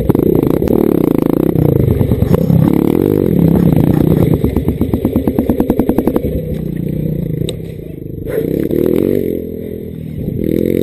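Dirt bike engine idling with its revs rising and falling, then settling into slow, even firing pulses. It turns quieter after about six seconds.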